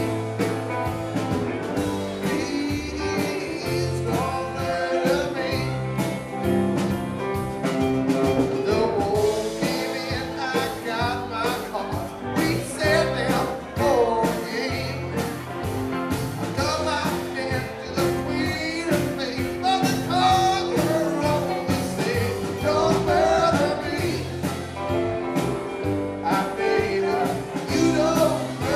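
Live rock band playing through a PA: two electric guitars, bass guitar, keyboards and drums, with singing.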